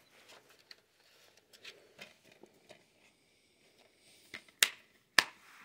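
Paper inserts and a plastic DVD case being handled, with soft rustles and light taps, then two sharp plastic clicks near the end.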